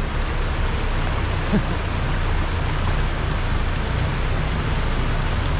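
4x4 vehicle's engine running with a steady low drone under a constant hiss of wind and road noise on the microphone.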